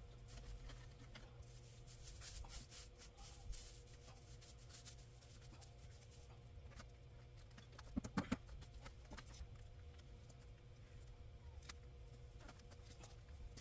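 Faint rustling and crackling of dry garden plant material, watermelon vines and straw, being pulled up and handled by hand. A quick cluster of louder knocks comes about eight seconds in.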